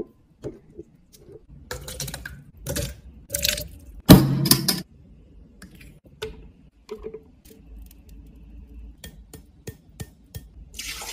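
A stainless steel muddler crushing grape pulp in a glass bowl: a few short crushing strokes with knocks against the glass, the loudest about four seconds in. Then lighter taps and small clicks as ingredients are tipped from a stainless steel cup into a plastic blender jar.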